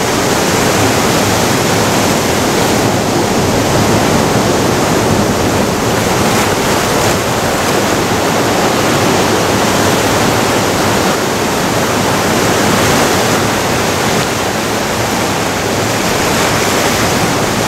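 Ocean surf breaking and washing among the shore boulders: a steady, loud rush of white water.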